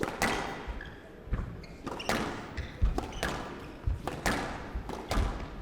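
Squash rally in play: the ball cracks off rackets and walls every half second to a second, with low thuds between the shots and a short echo after each hit.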